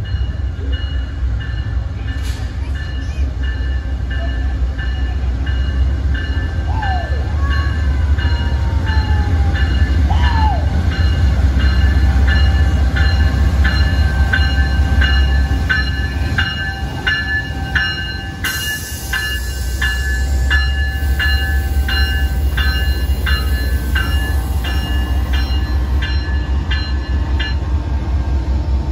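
An Amtrak GE P42DC diesel locomotive arriving slowly at a station platform, its engine a deep steady rumble that grows as it draws alongside, with its bell ringing about twice a second throughout. Short squeals come a few seconds in, and a sudden hiss starts past the middle.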